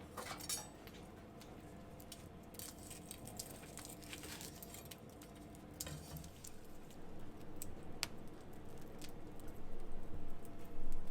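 Wood campfire crackling, with irregular sharp pops and snaps that grow a little louder near the end.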